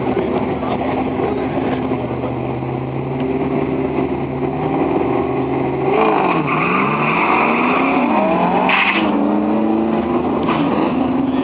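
Supercharged V8 of a Ford F-150 SVT Lightning pickup running at the drag strip. It holds a steady pitch at first, then gets louder about six seconds in, with its pitch falling and rising several times as it revs and accelerates.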